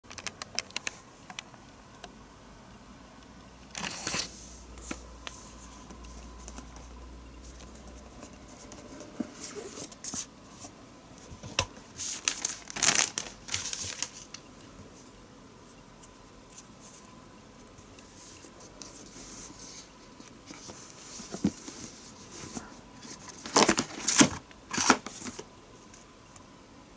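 Product packaging being handled and torn open: scattered clicks with tearing and crinkling, loudest about halfway through and again in a cluster near the end.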